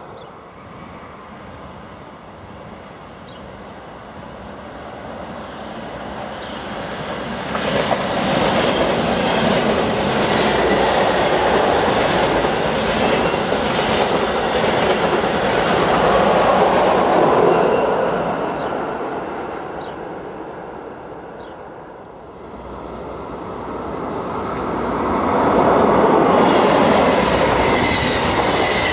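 A train passing through a station, its wheels clattering over rail joints as it goes by, loudest in the middle and then dying away. Near the end a second train comes up and passes just as loudly.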